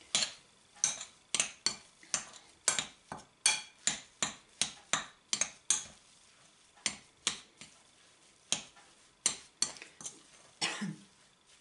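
Metal spoon clinking and scraping against a glass mixing bowl while stirring a stiff, crumbly dough. The sharp clinks come about two or three a second at first, then fewer after about six seconds.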